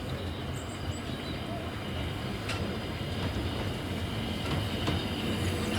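Narrow-gauge steam train running along the line: a steady rumble with some clatter of wheels on rail, slowly getting louder.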